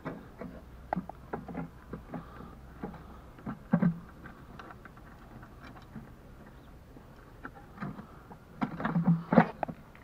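Tofaş Doğan SL headlamp lens and housing being handled while the metal retaining clips are pressed onto the glass rim. The sound is a scatter of small clicks and knocks, with a louder cluster about four seconds in and another near the end.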